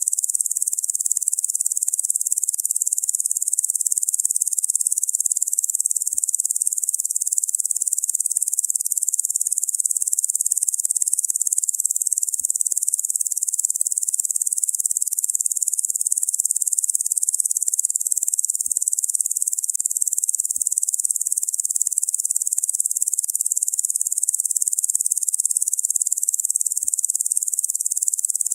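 Locusts buzzing in a dense, steady, high-pitched chorus that does not change.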